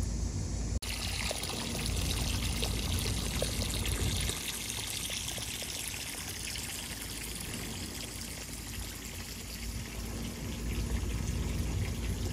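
Garden hose running into a pond: a steady pour of water splashing onto the surface, starting abruptly about a second in, over a low rumble.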